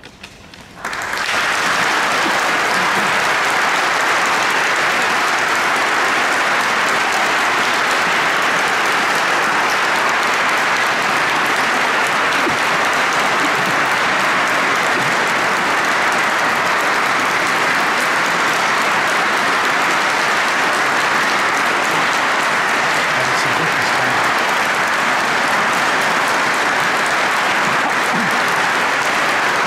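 Audience applause, starting about a second in and holding steady at full strength.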